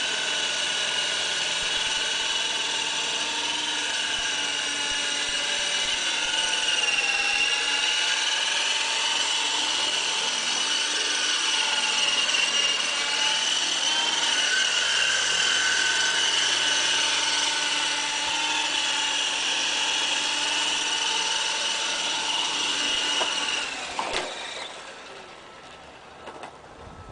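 MD 530 Innovator model helicopter flying with a high, steady whine whose pitch wavers slightly as it manoeuvres. About 24 seconds in, the motor is cut and the whine dies away, with a couple of clicks.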